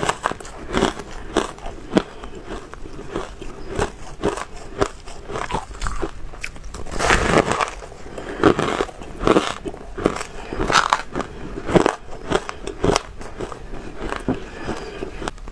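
Dry, powdery ice being bitten and chewed: dense crisp crackling and crunching with many sharp snaps, swelling into louder bouts of crunching from about halfway through.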